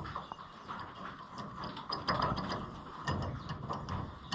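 Light metallic clicks and rattles of roller chain links being handled, from a combine's gathering chain being pieced back together, with a run of small clicks through the middle.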